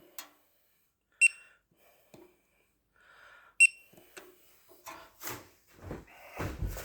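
Two short, sharp electronic beeps about two and a half seconds apart, followed by faint clicks and a build-up of low rustling and knocking near the end.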